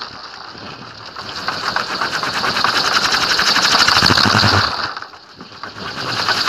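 Large wooden kolecer (Sundanese wind-driven propeller on a pole) spinning in the wind. Its blades make a fast, rapid chopping whir that swells, dips about five seconds in, and then picks up again.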